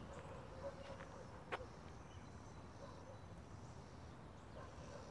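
Quiet outdoor background: a low steady rumble with a single sharp click about a second and a half in.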